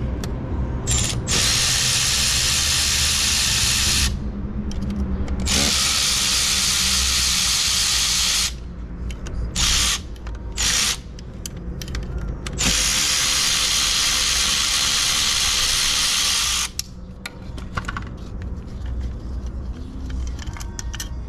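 Power tool running fasteners on a 2009 Ford Fiesta 1.2's manual gearbox, in three long runs of a few seconds each with two short blips between the second and third.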